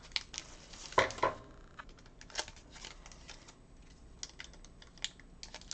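A foil trading-card pack and its cards being handled: the wrapper crinkles, with scattered light clicks and ticks, loudest about a second in.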